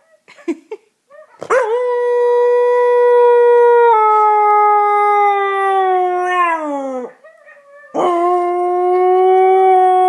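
Young husky howling: two long howls, each held steady on one pitch and then sliding down at the end. The first begins about a second and a half in and lasts some five seconds; the second begins near the end.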